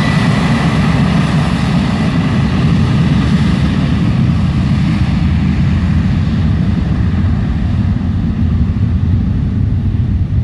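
Boeing 737-74U Business Jet's CFM56-7 turbofan engines on the landing rollout: a loud, steady low rumble, with a high engine whine that fades over the first few seconds.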